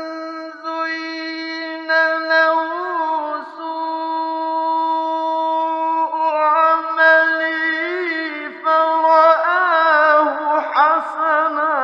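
A man's voice reciting the Quran in the melodic mujawwad style, holding long high notes and winding into wavering ornaments, with short breaths between phrases.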